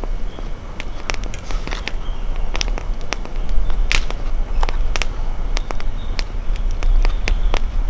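Campfire crackling, with irregular sharp pops and snaps over a steady low rumble.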